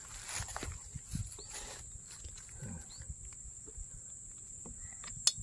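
Close eating noises, chewing and slurping instant noodles, with small clicks of a spoon against the metal pan and bowl, over a steady high insect drone. Two sharp clicks stand out near the end.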